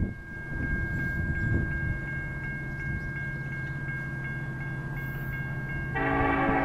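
Railroad grade-crossing warning bell ringing steadily at about three strikes a second. About six seconds in, a Union Pacific locomotive's horn starts sounding, loud, over it.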